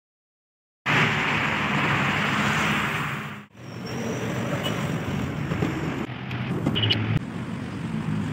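Street ambience with traffic, picked up by a phone microphone. It starts after about a second of silence, runs as a loud steady rush, breaks off abruptly about three and a half seconds in, then carries on a little quieter.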